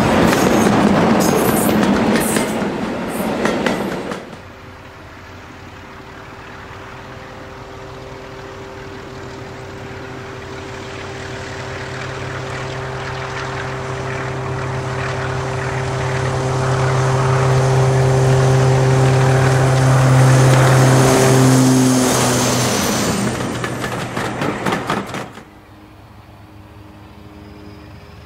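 A Class 46 Peak diesel locomotive passes close with its coaches, a loud rush with wheels clicking over the rail joints. After a sudden cut, Class 44 Peak D4 'Great Gable' and its Sulzer 12-cylinder engine drone steadily, growing louder as the locomotive approaches and passes. Near the end another cut brings a fainter diesel engine running in the distance.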